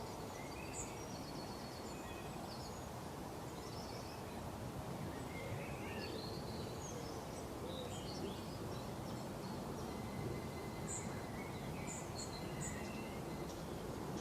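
Wild birds chirping and calling over a steady outdoor background hiss. Short chirps and quick trills come thick and fast throughout, of several different kinds.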